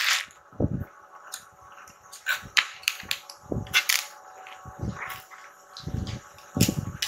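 A bamboo cutting board being unpacked and handled: its cardboard packaging rustling, with scattered sharp clicks and several short knocks and thumps as the board is moved and set down.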